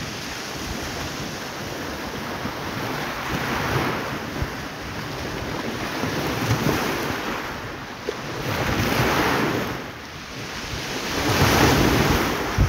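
Small waves breaking on the shore, swelling and falling away every few seconds, with wind buffeting the microphone.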